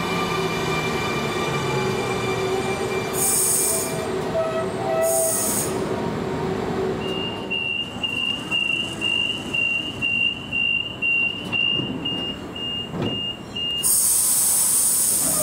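Sydney Trains electric suburban train at a station: steady motor whine and wheel noise with two short high-pitched bursts. Then a high electronic beep repeats about twice a second for some seven seconds, followed near the end by a loud high hiss.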